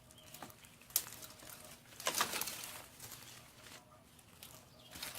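Azalea branches and brush being handled: a sharp snap of a twig about a second in, then a louder rustle of leafy branches at about two seconds, with small crackles of twigs throughout. The chainsaw is not running.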